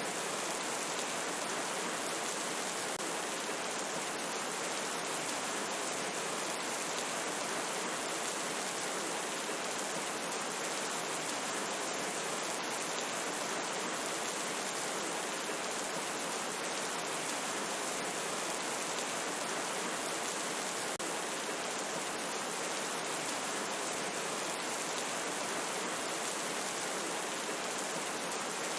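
Steady, even rain falling, a continuous hiss of water without thunder or breaks.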